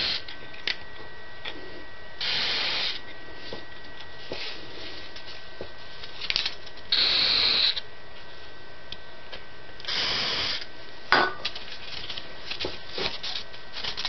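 A WD-40 aerosol can hissing through its straw into the bearings of a K55 stack-motor ceiling fan, three short sprays about half a second each, to free up the gummed bearings. Between the sprays there are handling clicks and rubbing on the motor housing, with a sharper click about eleven seconds in.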